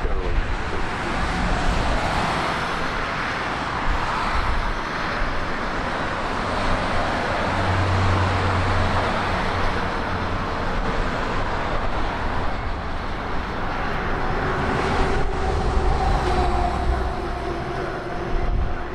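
Jet aircraft engine noise: a loud, steady rushing sound, with a couple of faint steady tones coming in about three quarters of the way through.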